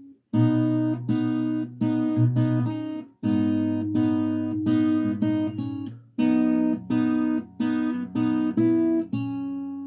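Acoustic guitar played fingerstyle: a picked arpeggio figure with a bass note under open G and B strings, in three short runs of plucked notes, the last chord left to ring out near the end.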